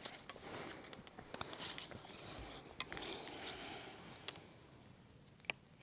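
Upholstery fabric being handled and rustled while it is measured, with a few sharp clicks near the end.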